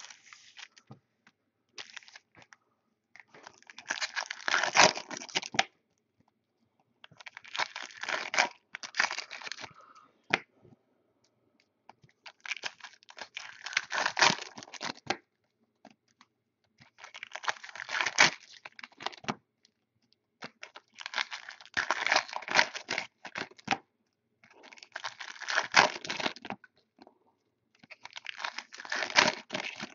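Foil trading-card pack wrappers being torn open and crinkled, one pack after another: about seven bursts of crackling, each a couple of seconds long, roughly every four seconds.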